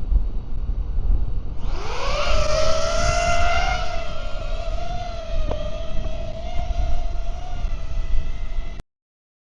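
DJI Avata FPV drone with a 5-inch carbon upgrade frame spinning its motors up about 1.6 s in, a rising whine that settles into a steady propeller hum, over wind buffeting the microphone. The sound cuts off suddenly near the end.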